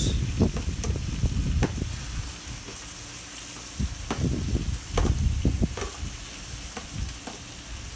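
Sauced beef and broccoli sizzling on a Camp Chef flat-top griddle, with a metal spatula scraping and knocking as it pushes cooked vegetables out of a plastic container. The scraping comes in two spells, near the start and about halfway through.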